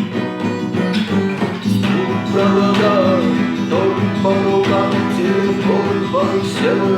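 Acoustic guitar playing an instrumental passage of the song, steady chords with a higher melody line that bends in pitch coming in after about two and a half seconds.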